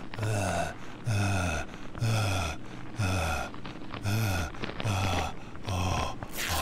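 A man's voice groaning over and over, about once a second, each groan sliding down in pitch, with a breathy rush near the end.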